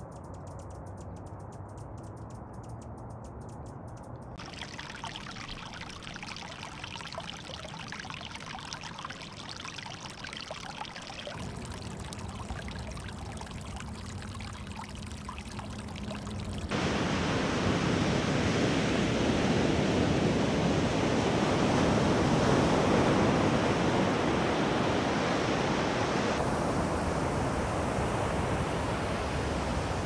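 Outdoor ambience that changes abruptly a few times: quiet and muffled at first, then a fainter crackling haze. A bit past halfway, a small stream starts splashing and pouring over rocks, loud and steady to the end.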